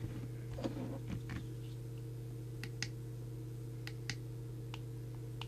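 Sharp push-button clicks on the Midland M-Mini CB radio's controls, half a dozen or so, spaced irregularly half a second to a second apart, after a second or so of handling rustle. A steady low hum runs underneath.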